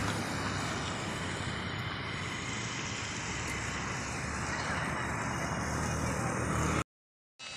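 Steady road traffic noise with a low engine hum underneath, cutting off abruptly near the end.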